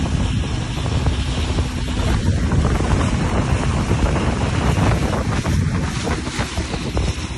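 Motorboat running at speed, wind buffeting the microphone and water rushing past the hull in a steady, gusty roar.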